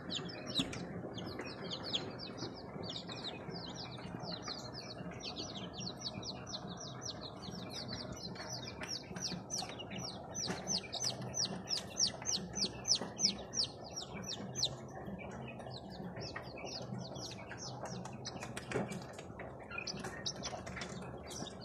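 A brood of young chicks peeping continuously: many short, high-pitched cheeps overlap in quick succession, most densely in the middle stretch. The brood is newly hatched kampung (native village chicken) chicks with broiler chicks.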